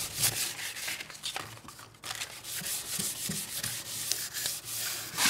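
Sandpaper rubbed by hand over a wooden boat board in repeated, irregular rasping strokes.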